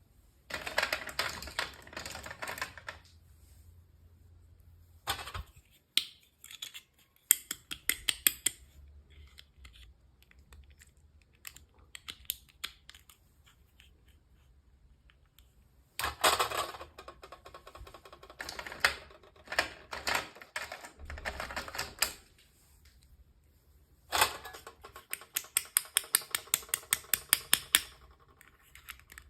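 Small plastic packaging and toy parts handled close up: bursts of crinkling and rapid clicking and tapping, separated by short quiet pauses.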